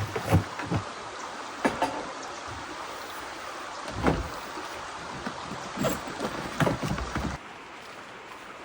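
Creek water flowing steadily, with a few short, louder splashing sounds over it. It becomes quieter about seven seconds in.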